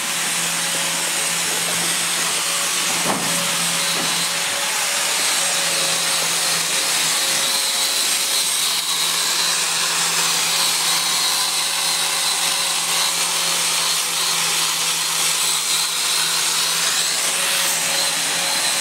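Handheld angle grinder (marble cutter) running steadily with a high whine while cutting a stone slab.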